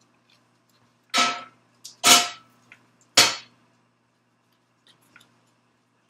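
Three sharp metallic clanks about a second apart, each ringing briefly: cast-iron Dutch ovens and their lids being handled.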